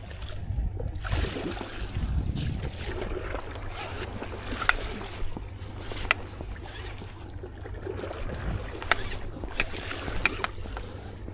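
Water sloshing and lapping, with wind on the microphone and a handful of sharp clicks in the second half.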